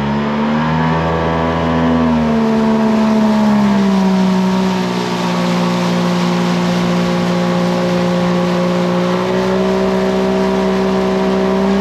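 Tohatsu jet outboard motor pushing a skiff under way. Its pitch rises and dips over the first few seconds, then holds steady at cruising speed.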